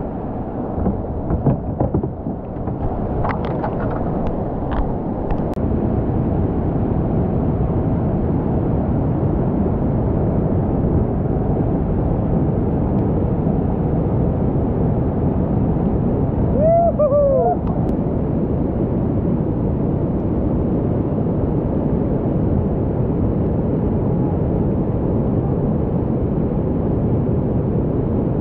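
Steady, loud roar of a big whitewater rapid, the river pouring over rock ledges in heavy foaming water. A brief shout rises and falls over the roar about seventeen seconds in.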